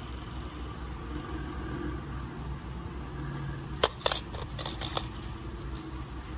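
Steel pedicure tools clinking against each other, a quick cluster of five or six sharp metallic clicks about four seconds in, as the thin probe is exchanged for a pair of nail nippers. A steady low hum runs underneath.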